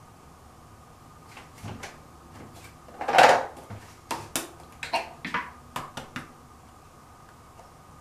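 A string of small clicks and knocks from makeup items being picked up and put down, with one longer, louder clatter about three seconds in, then several sharp clicks before it goes still.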